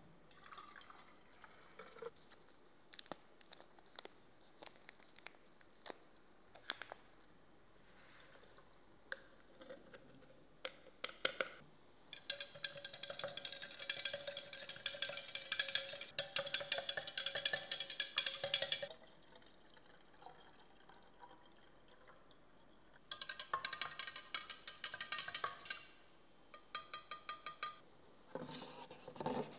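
Water is poured into a graduated mixing cylinder, then a stirring rod clicks rapidly against the inside of the cylinder as the bleach is stirred. There is one long spell of stirring about twelve seconds in and a second one near the end, with scattered knocks of handling in between.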